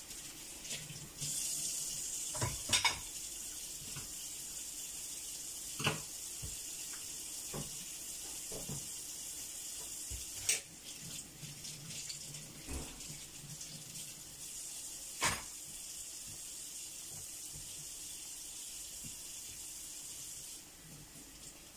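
A kitchen tap running in a steady hiss, turned on about a second in and off near the end, with a few sharp clinks of dishes and pans.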